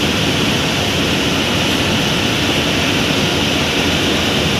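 Leyland BS-III bus diesel engine running under way, with the turbocharger's steady high whistle over the engine's low rumble, heard from inside the driver's cab.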